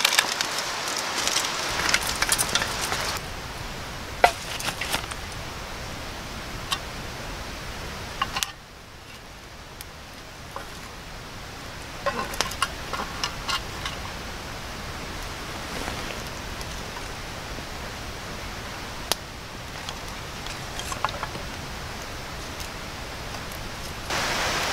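Small wood campfire crackling, with scattered sharp pops and snaps over a steady hiss.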